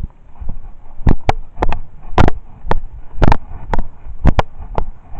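Footsteps at a walking pace, a sharp knock about twice a second.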